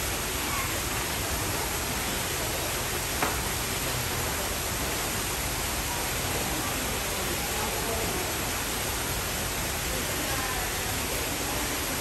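Steady, even rushing noise with faint, indistinct voices in the distance and a single sharp click about three seconds in.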